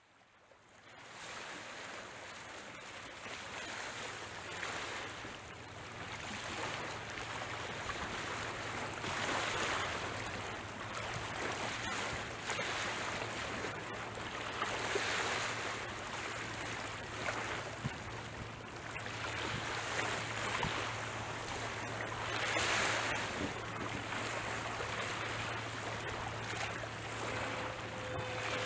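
Small waves washing on the shore, with wind on the microphone. The wash swells every few seconds over a faint, low, steady hum.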